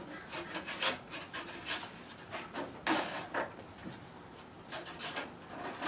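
Irregular rubbing and scraping with small knocks as hands work up inside a truck cab's panels, fumbling with a part. The loudest scrape comes about three seconds in.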